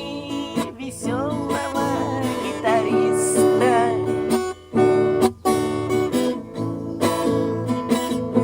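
A man singing to a strummed acoustic guitar. The sung line ends about four seconds in, and the guitar strumming carries on alone after it.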